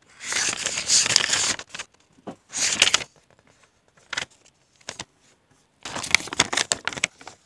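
Paper rustling in several bursts, with a quiet stretch of about three seconds in the middle broken by a few light clicks: the drone's instruction manual being handled and leafed through.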